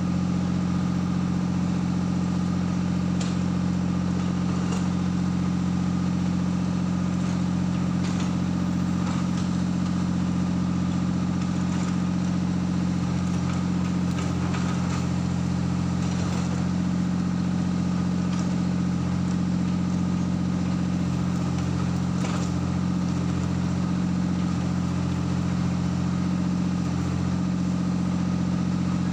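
Diesel engine of heavy construction machinery idling steadily at one constant speed, with a few faint metallic clinks now and then.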